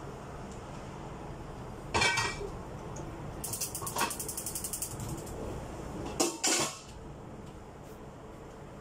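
Kitchenware clattering: a loud ringing clink about two seconds in, a quick run of light ticks in the middle, and two sharp knocks near the end.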